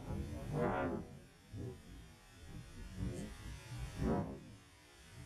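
Background music of low, swelling drone-like tones, with several swells rising and fading over a few seconds.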